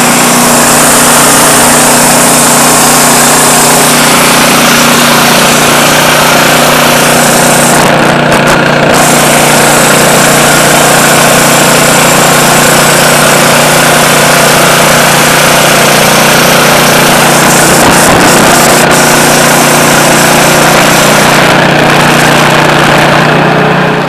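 Range Road RR5026 portable band sawmill running steadily, its engine holding an even pitch while the band blade cuts lengthwise through a log.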